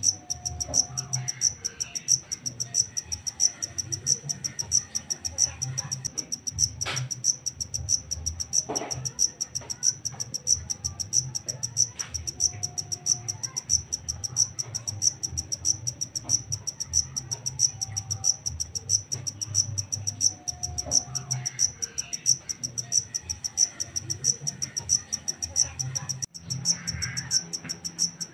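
Black field cricket chirping: a high-pitched trill repeated in quick, regular chirps, with a low hum underneath.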